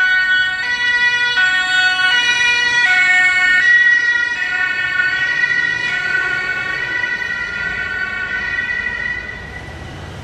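German two-tone emergency siren (Martinshorn) on a fire department animal-rescue van, sounding continuously, with the high and low notes alternating about every three quarters of a second. It is loud at first, then the alternation blurs and the siren fades toward the end as the van drives away.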